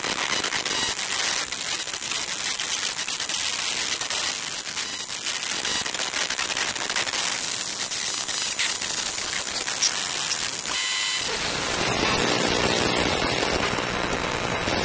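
Electrical noise from electronic circuitry: a crackling hiss full of fast clicks. About eleven seconds in it switches to a fuller buzz with steady tones, broken by brief dropouts.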